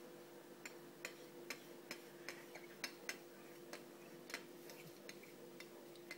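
A cat's paw tapping and scratching at the face of a quartz wall clock, a series of faint, light clicks about two to three a second that stop a little after four seconds in.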